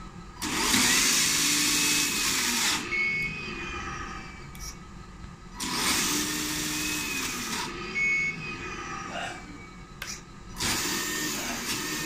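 A 1/14 Tamiya Grand Hauler RC tractor truck's electric drive motor and gearbox whirring in three bursts of about two seconds each, spinning up and winding down as the throttle is applied and released.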